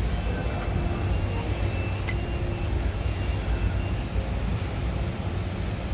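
Steady mechanical drone of a ship's deck crane and dockside machinery lifting a container, with a faint high whine through the first few seconds.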